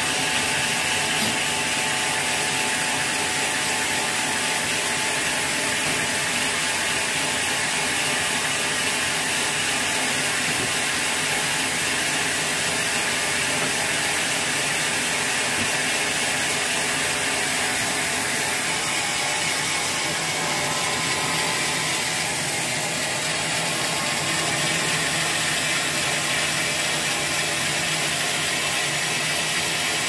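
Band sawmill running steadily, with the machinery rattling as a large teak log is pushed along its carriage.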